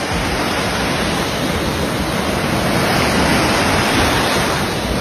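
Shallow surf washing up on a sandy beach: a steady rush of waves.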